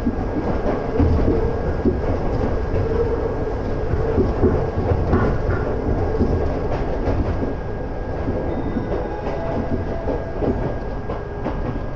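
Inside a converted ex-Tokyu electric railcar running at speed: steady running rumble with a humming note and irregular clicks of the wheels over the track.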